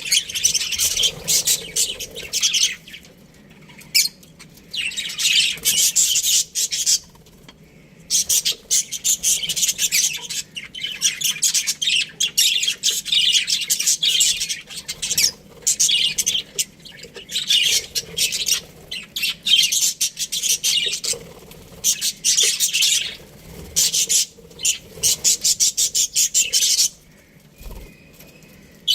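Budgerigars chattering and chirping in fast, scratchy warbles, in bursts of a few seconds with brief pauses between.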